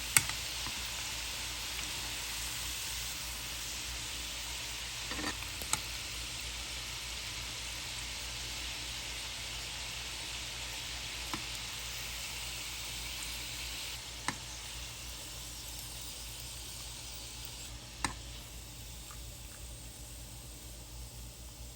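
Pieces of flour dough deep-frying in hot oil, a steady sizzle that grows a little quieter toward the end, with a few sharp clicks scattered through it.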